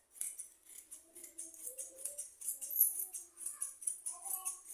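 Tailoring scissors snipping through synthetic suit fabric, a quick run of short crisp cuts.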